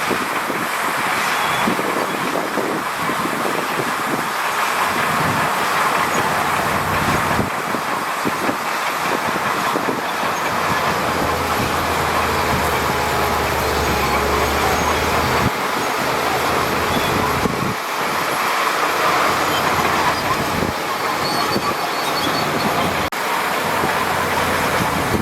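Crawler bulldozer working: a steady engine with its steel tracks clanking and squealing, the engine rumbling lower and heavier for a few seconds midway.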